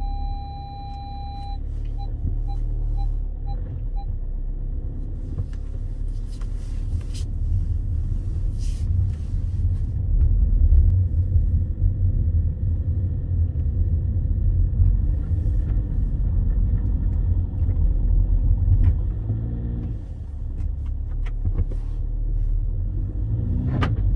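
Car driving on a snow-covered road, with a steady low rumble of engine and tyres heard from inside. In the first few seconds an electronic warning beep sounds as one held tone, then as slower beeps about twice a second that stop.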